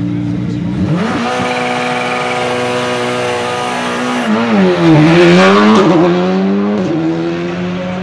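Škoda Fabia Rally2 car's turbocharged four-cylinder engine revving at a standstill with anti-lag: the revs rise about a second in and hold high, dip and swing back up to their loudest around the middle, then drop back to a steady lower note near the end.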